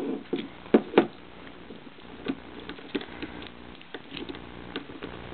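Irregular small metallic clicks and taps of an offset diamond pick and rigid tension wrench working the pins inside a Guard 835 45 mm padlock during single pin picking, the sharpest clicks near the start and about a second in.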